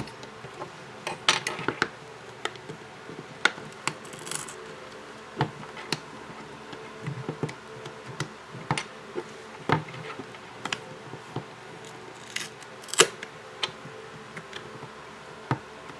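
Irregular sharp clicks and short crackles as a pry tool works under the glued back cover of a Sony Xperia XA1 Ultra smartphone: the adhesive beneath it separating.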